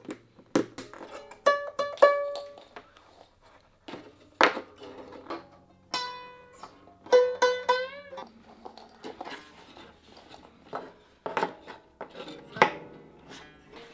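Gayageum strings plucked one at a time, each note ringing and fading, with several notes bent and wavered in pitch about halfway through. Sharp clicks fall between some of the notes.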